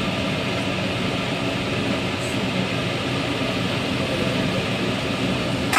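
A spring roll deep-frying in hot oil in a wok, the oil sizzling steadily, with a sharp clink near the end.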